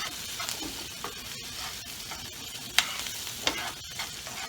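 Diced onions and bell peppers sizzling in a frying pan while being stirred, a utensil scraping and clicking against the pan now and then, the sharpest click a little under three seconds in. The onions are starting to brown.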